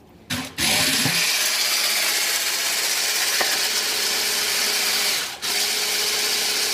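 Immersion blender motor running in a tall cup of cream, churning it into butter. It starts up about half a second in, runs steadily, and cuts out for a moment about five seconds in before running on.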